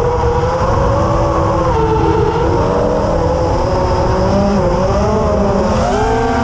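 FPV racing quadcopter's DYS Storm 2207 2550kv brushless motors with Gemfan tri-blade props whining, several pitches rising and falling together as the throttle changes through the flight. Underneath is a rough low rumble of wind buffeting the onboard microphone.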